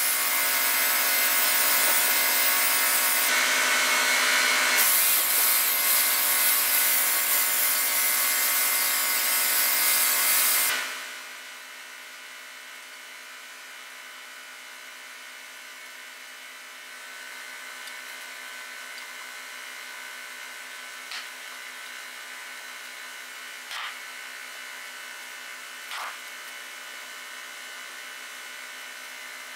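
Electric angle grinder working on the rusty steel saw mandrel, a loud harsh grinding rush that cuts off abruptly about ten seconds in. After it, only a low background with a few light metallic clicks near the end.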